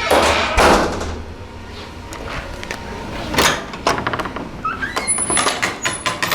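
Door with a Sargent door closer swinging and shutting, with a knock and a thud from the latch about three and a half to four seconds in, then a string of clicks and short squeaks from the door hardware.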